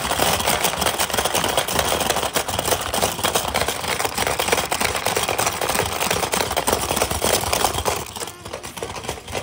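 Rapid, continuous plastic clacking and rattling of a hungry frog marble game as the players hammer the frogs' levers, the frogs snapping out at the plastic balls. It thins out near the end.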